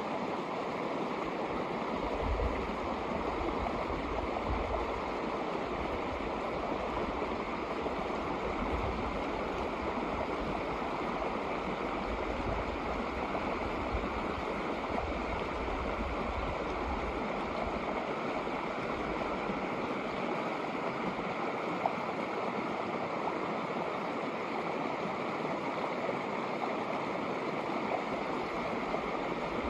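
Shallow snowmelt creek running over rocks: a steady rush of flowing water. A low rumble comes and goes through the first half.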